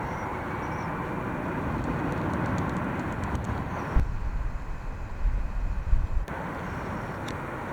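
Jet airliner engine noise, with wind gusts buffeting the microphone as low rumbling bursts about halfway through.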